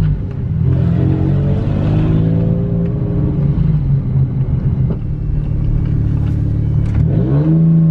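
Car engine heard from inside the cabin while driving, with a gear shift on the manual transmission just after the start. The engine note settles, then rises as it accelerates near the end.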